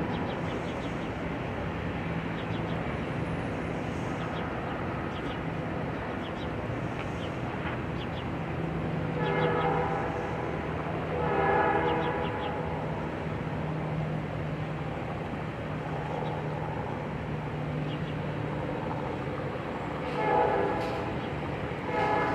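Metra commuter train running through with a steady rumble, its horn sounding four short blasts in two pairs, one pair near the middle and one near the end.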